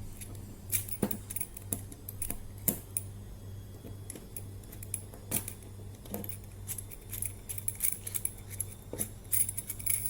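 Small metal parts of a heavy padlock clinking and clicking as it is taken apart by hand, in scattered sharp ticks and knocks, over a low steady hum.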